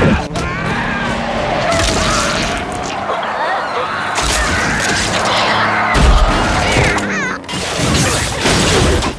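Action-film sound mix of a tanker truck skidding off the road, with crashing impacts and heavy booms, the loudest about six seconds in, over the film's music.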